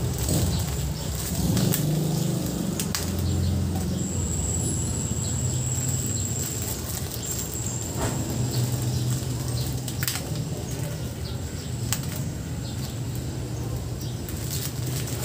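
Hands tying plastic mushroom fruiting bags shut with rubber bands: plastic rustling with a few sharp snaps now and then, over a steady low hum.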